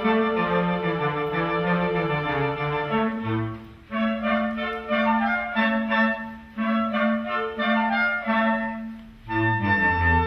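Woodwind ensemble of clarinets, bass clarinet and saxophones playing a dance piece, with brief breaks about a third of the way in and near the end. Between them come short repeated chords over a pulsing low note.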